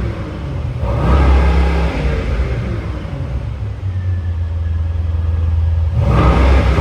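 Brabus Rocket 1000's twin-turbo V8 being revved: a sharp blip about a second in and another near the end, with a steady low idle between them.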